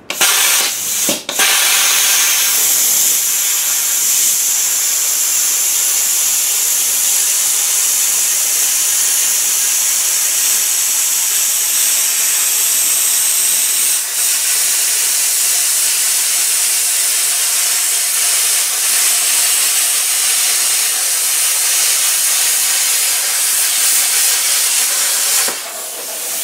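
Hand plasma cutter cutting sheet steel: a loud, steady hiss of the arc and air jet. It stutters briefly about a second in, then runs evenly and drops off near the end.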